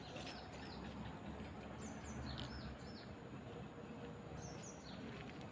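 Small birds chirping: a few short, high, downward-sliding chirps in quick pairs, about two seconds in and again near the end, over steady outdoor background noise.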